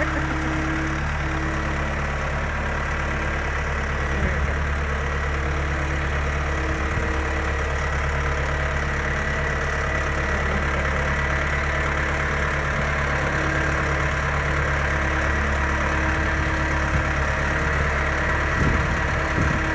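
Forklift engine running steadily at a low, even speed.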